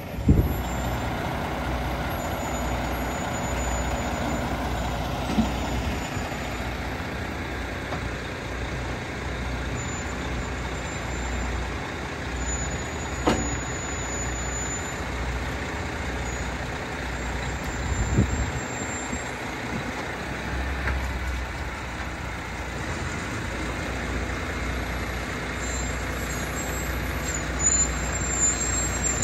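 A heavy diesel engine runs steadily at low revs, with a few sharp metallic knocks, one near the start and two about halfway through.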